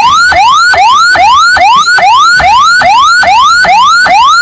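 Ambulance electronic siren in a fast repeating pattern: each tone rises steeply, then drops back at once, about two and a half times a second. This is the siren pattern for an ambulance carrying a patient who is not an emergency.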